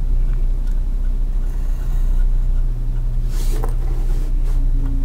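Steady low hum, with faint pencil strokes on paper along a plastic drafting triangle, the clearest about three and a half seconds in.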